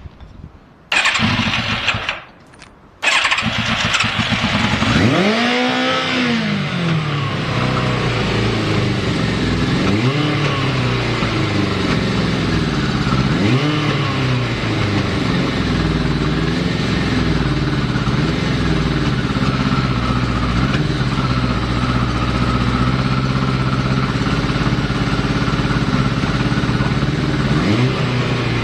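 Yamaha FZR1000 inline-four motorcycle engine cranked on its electric starter, stopping briefly, then catching about three seconds in and revving up once. It then idles unevenly, the revs rising and falling every few seconds: an unstable idle from carburettors that have not been adjusted.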